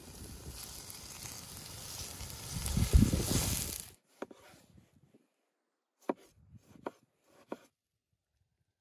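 A wood fire under a cast-iron cauldron, hissing and crackling, with a low thump about three seconds in; it cuts off abruptly about four seconds in. Then a large kitchen knife slices a tomato on a wooden cutting board: three sharp cuts in the second half.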